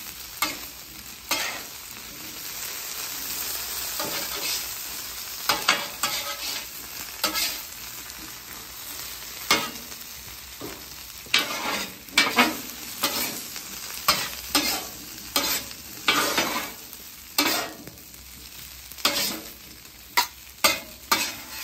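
Diced potatoes and chorizo sizzling on a flat-top griddle while metal spatulas scrape and clack against the steel, turning them over. The spatula strokes come thick and fast in the second half.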